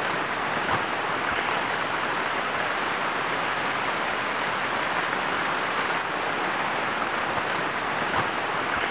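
Steady rushing of flowing river water, an even wash of noise with no breaks.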